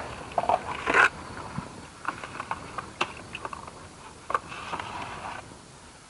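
Bucket being handled while bailing water out by hand: scattered knocks and scrapes with a few short rushing, splashy patches.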